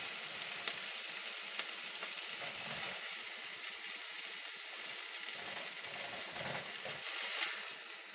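Steady sizzling of browned chicken tenders in a hot pan with the burner just turned off, with a few light clicks as the pieces are handled.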